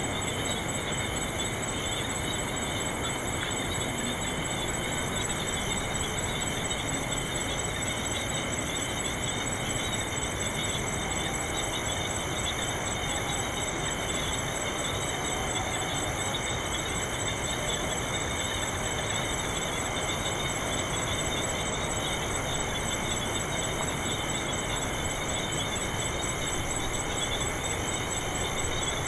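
Ambience of a thicket: a chorus of several insects trilling steadily at different pitches, one with a fast pulsing trill, over a steady low background rumble.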